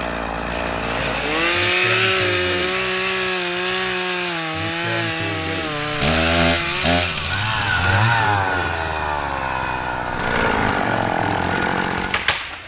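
Two-stroke chainsaw revving up to high speed and cutting into wood, its engine pitch sagging and rising again as it works, then dropping away. A few sharp cracks come near the end.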